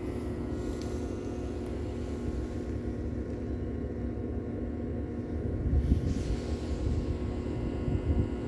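A steady low mechanical hum with a few constant tones, its source not shown. From about six seconds in, wind buffets the microphone in gusts.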